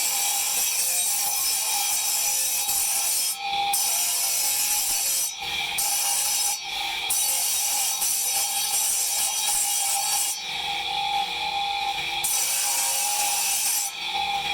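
Marble being abraded with a tool, a continuous scraping in long strokes that break off briefly every second or two, under background music.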